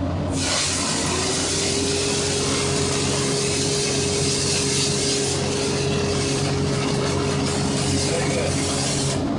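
Dry ice blasting gun firing a continuous blast of compressed air and dry ice: a loud, steady hiss with a thin steady whistle in it, cutting off suddenly near the end. A steady low hum runs underneath throughout.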